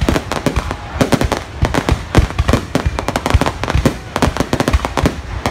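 Aerial fireworks going off in a rapid, continuous barrage of overlapping bangs.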